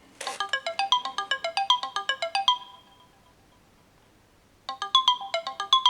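Smartphone ringtone playing a fast run of short, bright notes for about two and a half seconds, then pausing for about two seconds before the run starts again near the end.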